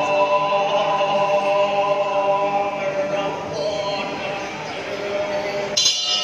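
Music for a Balinese barong performance, with held chanting voices over the accompaniment. Near the end comes a sharp, bright metallic strike that rings on.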